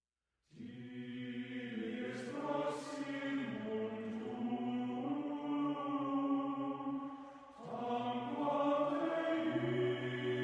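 Background music: wordless sung vocals in harmony, held chanted notes that start about half a second in and briefly fall away about seven and a half seconds in before coming back.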